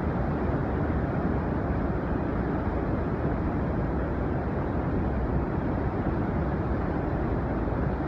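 The Yellowstone River pouring over the brink of a big waterfall: a steady, deep roar of rushing water that never lets up.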